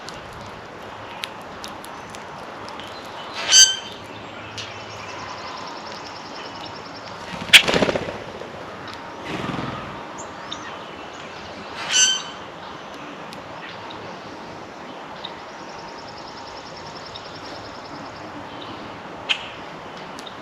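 Backyard birds at a feeder: two loud, harsh calls about three and a half and twelve seconds in, over a faint high trilling song. A sharp knock comes about seven and a half seconds in, and a click near the end.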